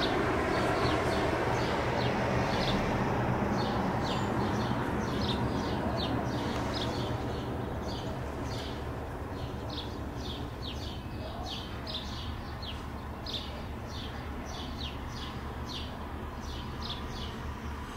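Bombardier CL-415 water bomber's two turboprop engines running as it skims the water scooping a load, fading steadily as it moves away. Over it a small bird chirps rapidly and repeatedly, two or three short calls a second.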